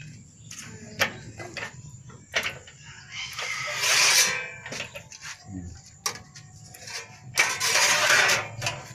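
Hand-operated sheet-metal bending brake being worked: sharp metal clanks from its clamp and hinged bending leaf, and two longer metallic rasps, about three to four seconds in and again near the end, as a strip of thin sheet metal is slid into and bent in its jaws.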